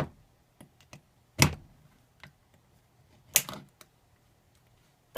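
Sharp metallic clicks and knocks from a lock and small tools being handled: four distinct knocks, the loudest about a second and a half in, with fainter ticks between them.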